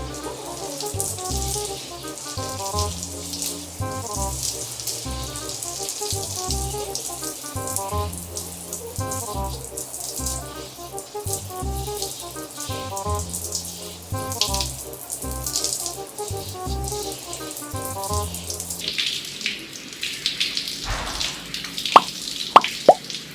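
Background music with a steady beat over running water, as from a tap during hair washing. About 19 seconds in the music stops, leaving the water running, with a few sharp clicks near the end.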